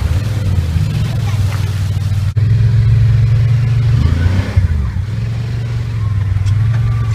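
Side-by-side UTV engines running steadily at low revs, with an abrupt jump in loudness about two seconds in and a brief rise in engine speed about four seconds in.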